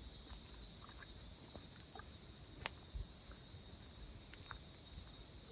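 Faint, steady high-pitched chorus of insects in bushland, with a higher chirp repeating about once a second and a single sharp click about two and a half seconds in.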